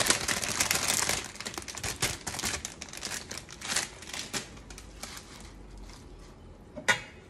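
Plastic salad bag crinkling and crackling as baby spinach is shaken out of it, dying away about four and a half seconds in. Then a quieter rustle as the leaves are pushed down into the pot by hand.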